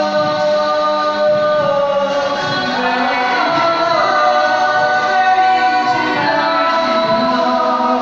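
Five-voice mixed a cappella group, men and women, singing close harmony into microphones, holding sustained chords that change every second or two.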